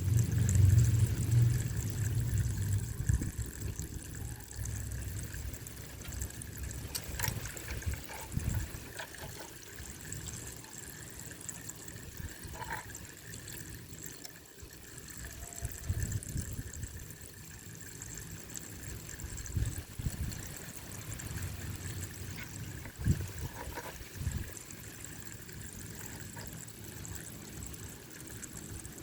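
Water pouring and trickling as it swirls through a small 3D-printed vortex water turbine model fed by a small pump, over a faint steady high tone. It is louder and deeper in the first few seconds.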